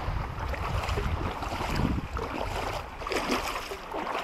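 Wind rumbling on the microphone over the steady wash of shallow seawater, with small faint splashes.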